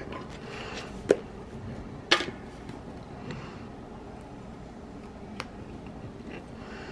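A few light desk-handling sounds from planner crafting, paper and sticker being placed and pressed: two short sharp taps about a second apart, then a faint click later, over low room hiss.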